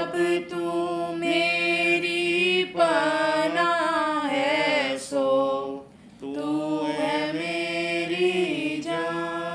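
A woman singing a Christian worship hymn in long, held notes, with a steady lower tone underneath. There is a short break between lines about six seconds in.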